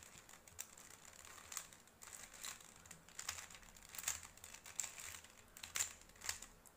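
Stickerless plastic 3x3 Rubik's cube being scrambled by hand, its layers turned quickly in faint, irregular clicks and clacks.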